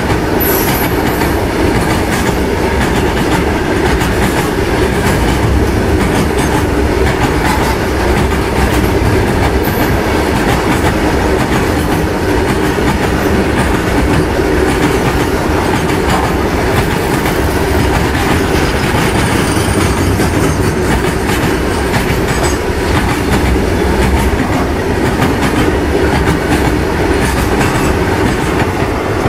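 Covered BCNA freight wagons rolling past: a loud, steady rumble of steel wheels on rail with a rapid clatter of wheelsets over rail joints, and a faint high wheel squeal now and then.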